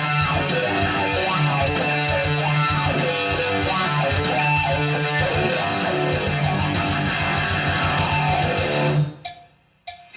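Rock music with electric guitar and bass guitar playing, which stops abruptly about nine seconds in.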